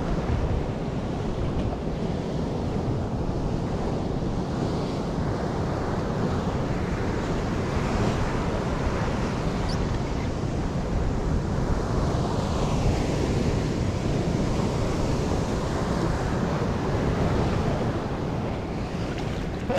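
Steady wash of sea waves and surf, with wind buffeting the microphone on a kayak out at sea.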